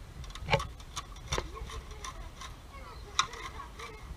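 Long-handled lever cutter chopping fish on a concrete slab: a series of sharp knocks and clacks as the blade is worked down, the loudest about half a second in and again about three seconds in.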